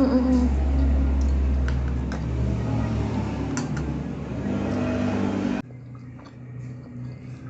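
A steady low rumble with a few light clicks, like an engine running, that cuts off abruptly about five and a half seconds in, leaving a quieter background.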